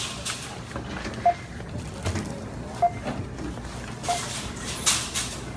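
Supermarket checkout ambience: a barcode scanner gives a short single beep about every second and a half as items are scanned, over background clatter, with a burst of rustling near the end.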